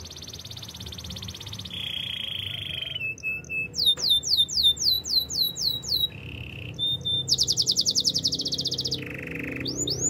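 Canary singing: a sequence of rapid high trills and a lower buzzy roll, broken up by runs of descending swooping notes, about five a second, with the phrase type changing every second or two.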